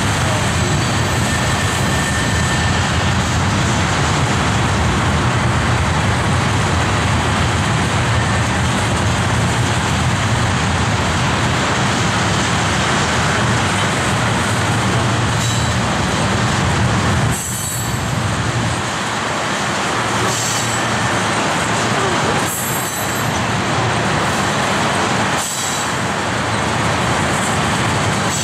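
Freight train of tank cars rolling past: a steady rumble and rush of steel wheels on the rails, dipping briefly a few times in the second half.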